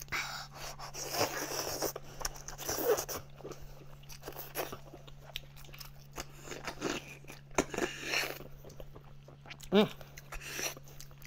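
Close-up eating sounds of a person biting and chewing braised goat shank meat, wet and irregular, with a short voiced sound near the end. A steady low hum runs underneath.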